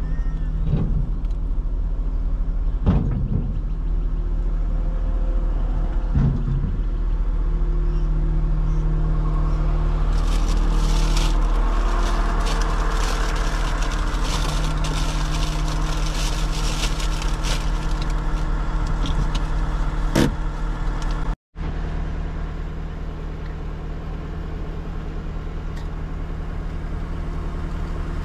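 Motor vehicle running: a steady low engine and road rumble with a few knocks and rattles, briefly noisier and brighter in the middle, and cutting out for a moment about three-quarters through.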